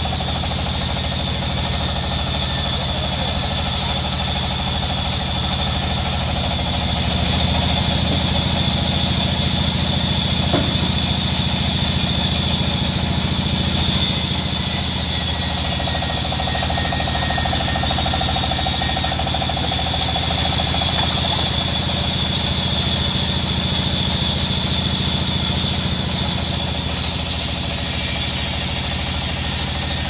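Large belt-driven band saw running and cutting lengthwise through a red mahogany slab: a steady, loud low drone from the saw's drive with a constant hiss of the blade in the wood.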